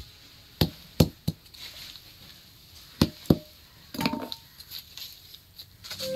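Nylon cord snapping taut with sharp taps as it is pulled hard while being tied into a rope. There are three taps in the first second and a half, two more about three seconds in, then a short rustle of the cord.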